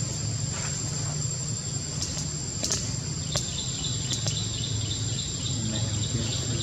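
Outdoor insect sounds: a steady high-pitched insect whine, joined about halfway through by a rapid run of short chirps, over a low steady hum, with a few faint clicks.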